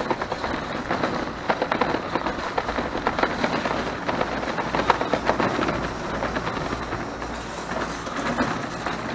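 Schwinn bicycle being ridden: a dense, irregular rattling and clicking of the bike's parts over a steady low rumble.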